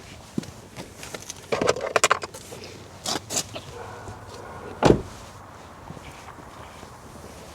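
Small parts and tools being handled: scattered clicks and a short metallic clatter, then one loud knock about five seconds in.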